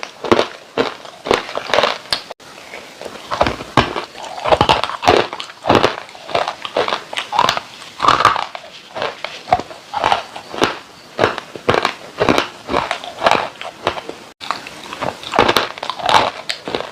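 Dry clay being bitten and crunched: a fast, irregular run of sharp, crumbly crunches.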